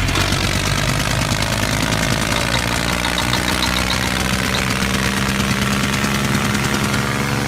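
Tractor engine running steadily at idle, a low chugging with a fast, even beat.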